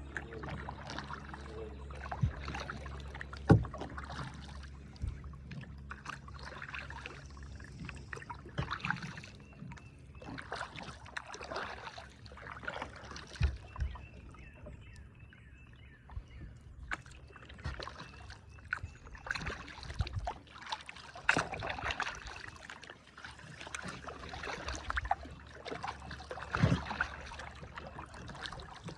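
Kayak paddling on a river: the paddle dipping and splashing in irregular strokes, with occasional sharp knocks.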